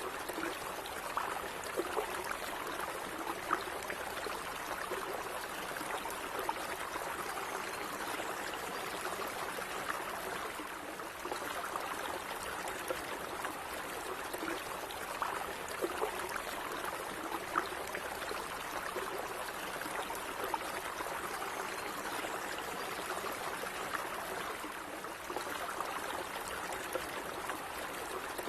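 Small stream flowing steadily, with water trickling and bubbling over stones in many small splashes.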